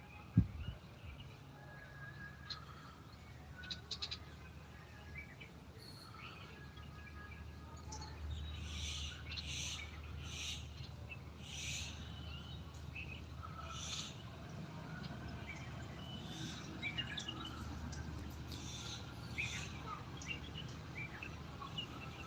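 Birds chirping and calling, with short high chirps repeating about once a second from about eight seconds in, over a steady low rumble. A brief thump sounds near the start.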